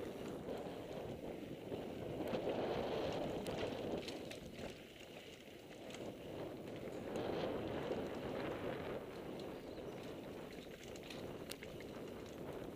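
Mountain bike riding fast down a dirt singletrack: knobby tyres rolling over dirt with a rushing noise that swells and fades twice, and scattered sharp clicks and rattles from the bike over bumps.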